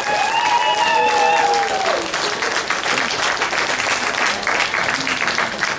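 Audience applauding, with a dense, steady clatter of many hands. In the first two seconds a couple of long, drawn-out calls rise and fall over the clapping.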